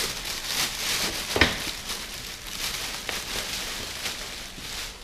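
A clear plastic bag crinkling and rustling as it is pulled off a boxed welder, with foam packing pieces rubbing, and one sharp knock about a second and a half in.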